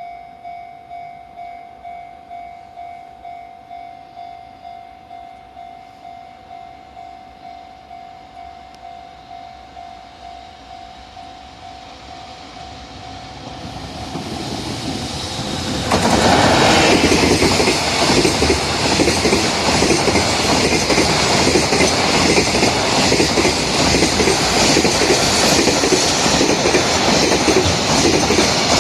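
Level-crossing warning bell ringing about twice a second while a freight train approaches. About 16 seconds in, the train hauled by an EF64 electric locomotive reaches the crossing, and the loud, steady running noise of its wheels and wagons drowns out the bell.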